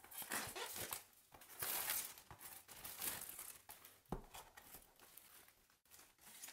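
Clear plastic shrink-wrap crinkling and tearing as it is pulled off a cardboard box, in irregular crackling bursts with a sharp snap about four seconds in.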